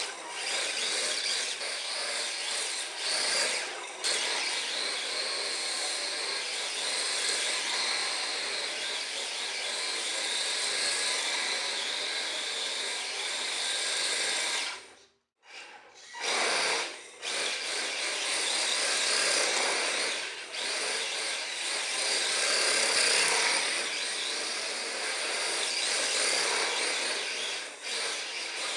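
Tamiya TA05 1/10-scale electric RC drift car running, its electric motor and drivetrain whirring like a small power tool as it powerslides. The sound cuts out briefly about halfway through.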